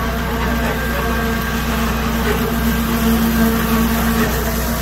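Liberty submersible grinder pump running steadily under load with a constant hum, its discharge gushing water and shredded cloth into a strainer basket.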